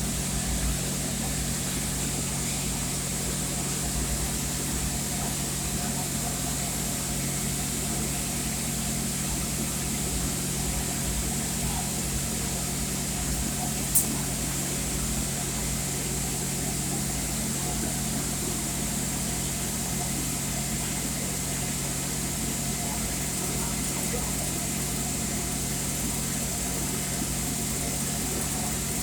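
Steady hum and hiss of TIG welding equipment running, unchanging throughout, with a single sharp click about halfway through.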